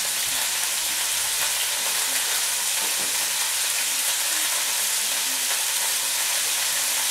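Thin ribeye steak frying in olive oil in a frying pan, a steady sizzle of hot fat.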